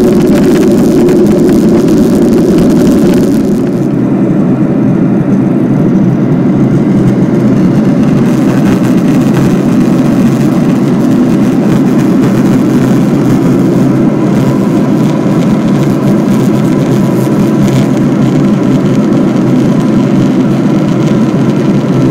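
Steady, loud engine and airflow noise of a jet airliner in flight, heard inside the cabin by the window; the higher hiss thins out a little about three and a half seconds in.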